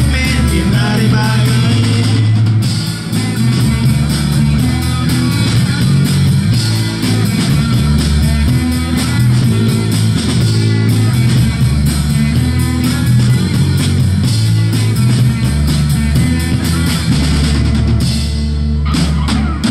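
Live band music: electric guitars and a drum kit playing a steady-beat pop-rock song, with some singing. The band thins out briefly near the end.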